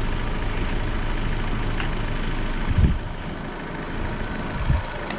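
Honda Civic engine idling steadily, with a dull thump about three seconds in and another near the end.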